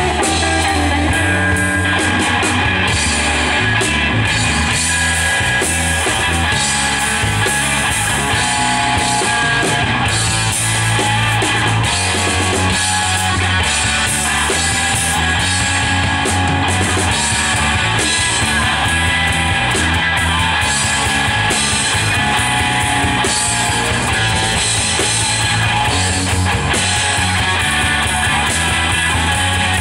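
Live instrumental rock played by a band on electric guitar, electric bass and drum kit, steady and loud.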